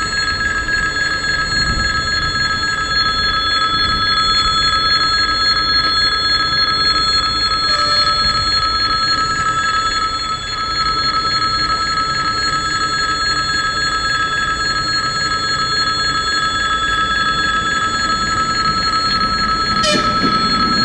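Level-crossing warning bell ringing continuously, a steady electric ringing while the barrier is down and a train is due. At the very end a brief rising sound comes through and the approaching commuter electric train starts to be heard.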